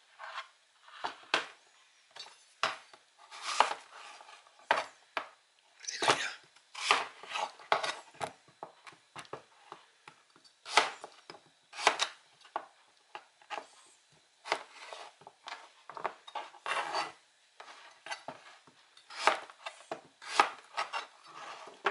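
Kitchen knife slicing through a large zucchini on a cutting board: a string of short, sharp cuts, each ending in a tap of the blade on the board, at an uneven pace of one or two a second.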